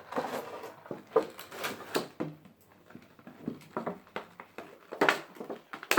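Small plastic toy parts and packaging being handled: rustling with several sharp clicks and taps.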